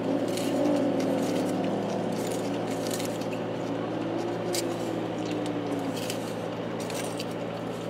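Faint voices under a steady low hum, with scattered short clicks and taps.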